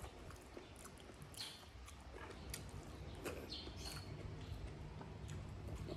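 Faint mouth sounds of a person eating with her hands: soft chewing with scattered short, wet smacks and clicks.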